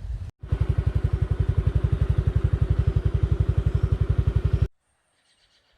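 Motorcycle engine running close to the microphone with an even, rapid putter of about a dozen pulses a second; it cuts off suddenly near the end.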